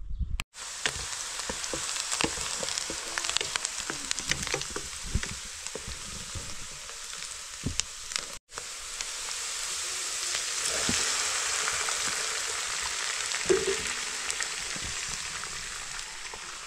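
Chopped food sizzling in oil in a steel frying pan, with the clicks and scrapes of a wooden spatula stirring it, mostly in the first half. The sizzle swells a little in the second half.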